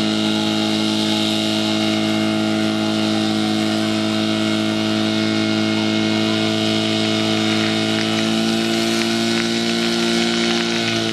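Portable fire pump's engine running hard as a steady drone, climbing slightly in pitch from about eight seconds in. It is driving water through the hose lines to the spray nozzles.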